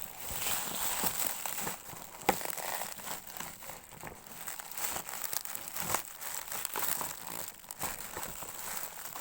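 Packaging crinkling and rustling as a parcel is unwrapped by hand, with scattered small clicks and one sharp snap a little over two seconds in.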